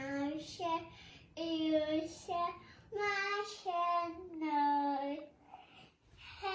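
A young girl singing in a high voice, holding notes of about half a second each in short phrases, with a brief pause near the end before she starts again.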